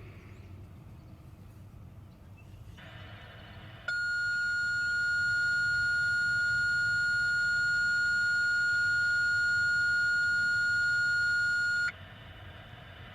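Dispatch radio alert tone: one steady, unchanging pitch held for about eight seconds, starting and cutting off abruptly, heard over a radio with static hiss that comes in just before it and stays on after. It is the attention tone ahead of a dispatcher's broadcast.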